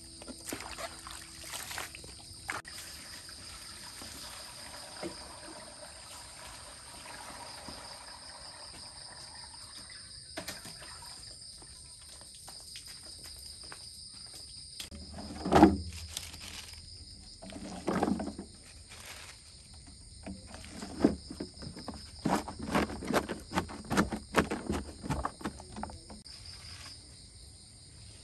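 Shredded cabbage rustling and squelching as it is tossed and squeezed by hand, then insects trilling steadily in high tones. In the second half, a string of short, louder sounds breaks in: one strong one, another a couple of seconds later, then a quick run of them.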